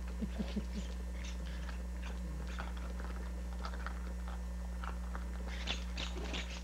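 Miniature dachshund puppy chewing and mouthing a tennis ball: a run of short, irregular crunching clicks that come thicker near the end.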